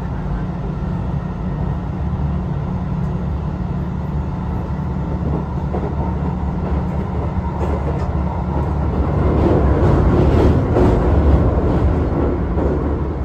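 Hankyu 2300 series electric train running, heard from inside the car: a steady low rumble of wheels on rail. It grows louder for a few seconds near the end, with a few faint clicks.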